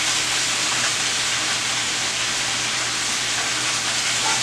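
Sliced mushrooms and shallots frying in hot olive oil in a cast iron skillet: a steady, even sizzle.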